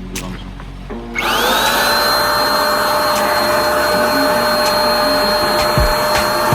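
Electric paint spray gun switched on about a second in, its motor spinning up with a rising whine that levels off into a loud, steady run.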